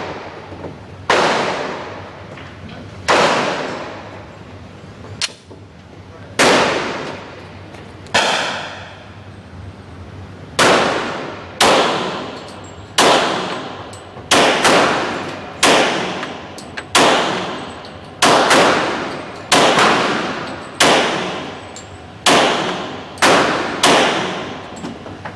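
Pistol shots fired one at a time, about eighteen, each a sharp crack with a long echoing decay; spaced two to three seconds apart at first, then coming faster, about one a second, from about ten seconds in.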